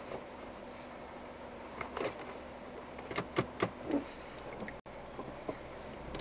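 A handful of short, sharp clicks and knocks, bunched between about two and four seconds in, over a faint steady background hum.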